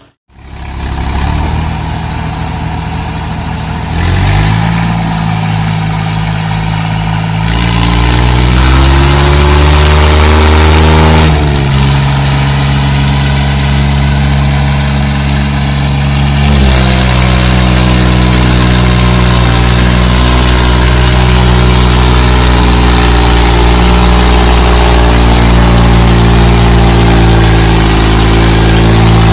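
New Holland 3630 tractor's diesel engine revving up, climbing in pitch about four seconds in and again a few seconds later, then running steady at high revs.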